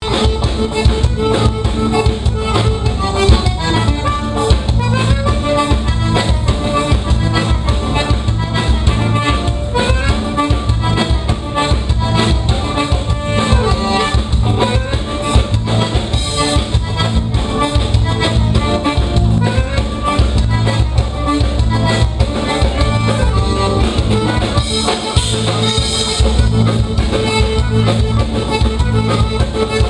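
Live gaúcho bailão dance band playing an upbeat number through the PA: piano accordion over electric guitar and a drum kit, with a steady beat.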